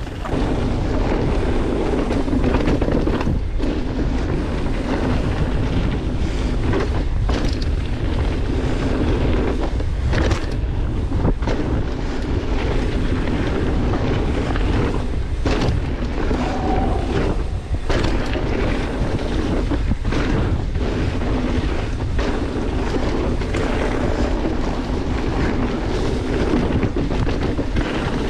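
Wind rushing over a GoPro's microphone and low rumble from a mountain bike rolling along a dirt trail. The noise is steady, with brief breaks every few seconds.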